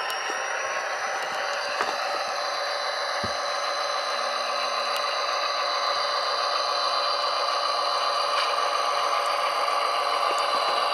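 Tsunami sound decoder in an HO-scale Athearn Genesis SD45-2 model playing its EMD 20-cylinder 645 diesel engine sound through the model's small speaker, running steadily and slowly getting louder.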